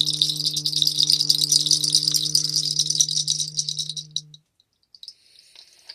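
A corded electric device running, with a steady low hum and a fast dense rattle, then switched off about four seconds in.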